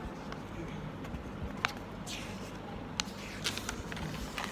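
Pages of a spiral-bound paper document being turned by hand: paper rustling in short swishes, with two sharp clicks about one and a half and three seconds in.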